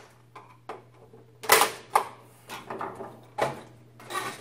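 Plastic retaining clips of an Avaya Partner telephone-system module's housing snapping and cracking as they are pried off with a screwdriver: a series of sharp snaps, the loudest about one and a half seconds in.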